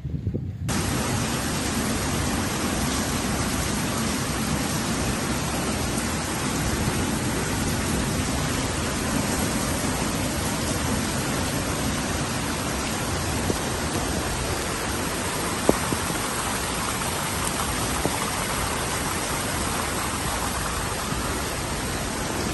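Heavy rain pouring down in a steady, dense hiss. A single sharp click comes about two-thirds of the way through.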